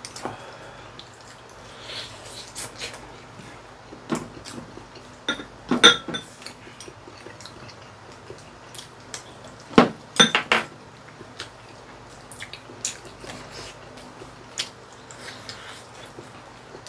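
Chopsticks clicking and knocking against ceramic rice bowls and dishes during a meal, in scattered irregular clinks, the loudest clusters about six and ten seconds in.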